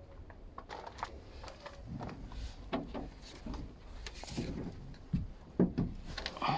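Scattered knocks, bumps and rustling as someone climbs up the step into a truck cab, with a few louder knocks near the end.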